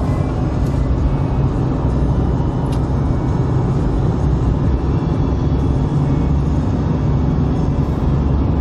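Steady drone of a car driving along, heard from inside the cabin: engine and tyre noise on the road.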